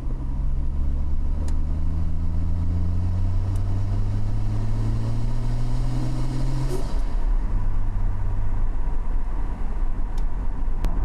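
Car engine pulling up through a gear, its pitch rising steadily for about seven seconds, then dropping suddenly at a gear change, over a steady low road rumble.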